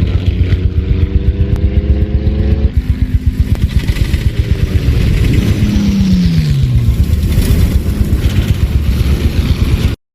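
Motors running with a pulsing drone, rising slightly in pitch over the first few seconds, then sweeping down in pitch about halfway through; the sound cuts off abruptly at the end.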